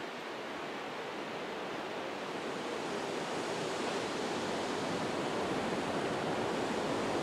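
Steady hiss of a small steam locomotive letting off steam while it shunts, growing slowly louder.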